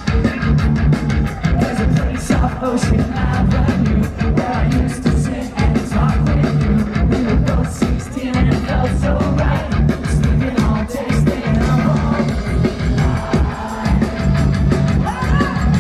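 Rock band playing live: a loud, driving song with steady drum hits, electric guitars and a singing voice.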